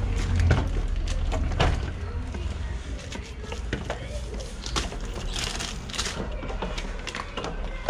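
Groceries being handled and unpacked: scattered knocks and clicks of items set down, with a stretch of rustling about five seconds in.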